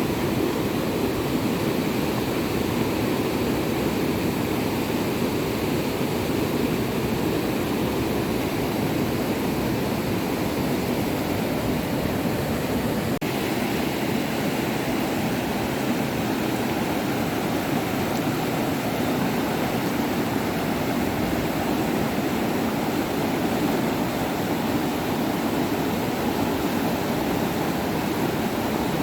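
Flowing floodwater making a steady, loud rushing noise.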